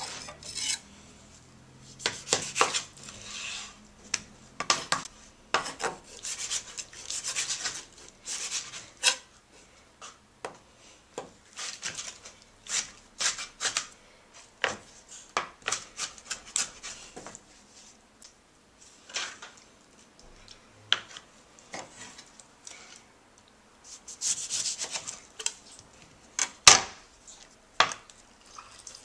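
Kitchen utensil scraping, rubbing and clinking against a dish in short, irregular strokes, with one sharp knock near the end.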